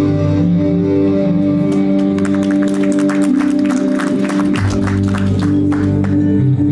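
Steady background music with sustained tones. A burst of audience clapping starts about two seconds in and dies away near the end.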